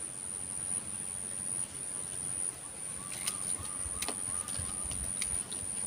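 Open-air ambience at the pond's edge: a steady high-pitched whine over a low wind rumble, with faint bird calls and a few light clicks in the second half.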